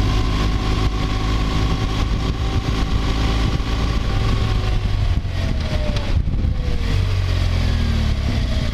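BMW R1200GSA boxer-twin engine running at road speed, heard with heavy wind rumble on the helmet microphone. About halfway through, the engine note falls steadily over a few seconds as the bike slows.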